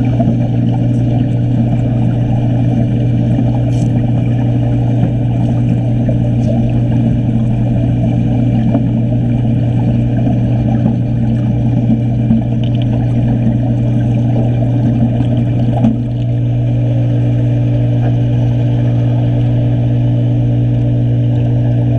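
Underwater wet stick-welding arc crackling over a steady low hum. The arc stops about sixteen seconds in, leaving only the hum.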